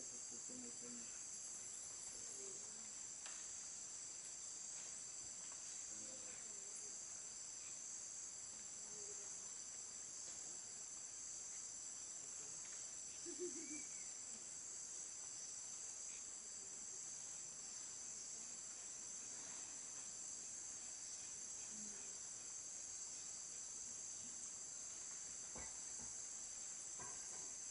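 Steady high-pitched chorus of rainforest insects, several shrill bands running together without a break, with a short louder sound about thirteen seconds in.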